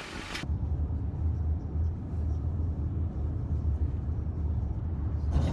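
A car driving, heard from inside the cabin: a steady low road and engine rumble, with little else above it.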